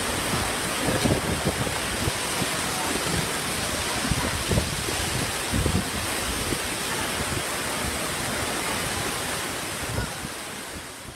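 Storm wind blowing hard with driving rain, a steady rushing noise, with gusts buffeting the microphone as low rumbles. It fades out near the end.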